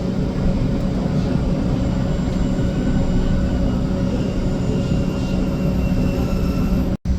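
Steady hum and rumble inside a modern tram, with a constant electric drone and a faint high whine in the middle. The sound cuts out completely for a moment near the end.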